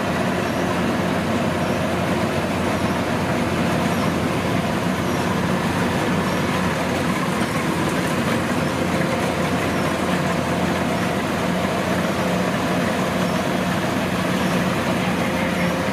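Kubota DC105X rice combine harvester's diesel engine running steadily, a constant loud drone with a few steady tones.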